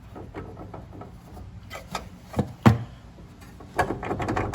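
Mini lathe chuck safety shield being moved and handled by hand: rubbing and light knocks, one sharp knock about two and a half seconds in, then a quick run of clicks and rattles near the end.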